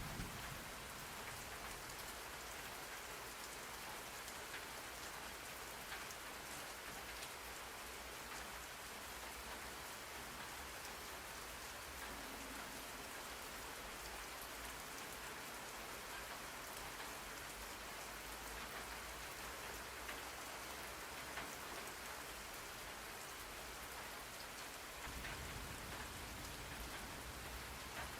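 Steady rain falling, a continuous hiss with the patter of individual drops; a low rumble at the very start dies away within the first second.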